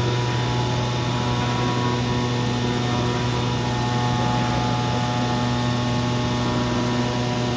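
CNC oscillating-knife cutting machine running: a steady machine hum with a strong low drone and several fainter steady whining tones above it.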